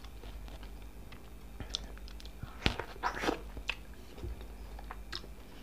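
Close-miked chewing of a mouthful of raw tomato, with soft wet clicks and smacks of the mouth and a few louder ones around the middle.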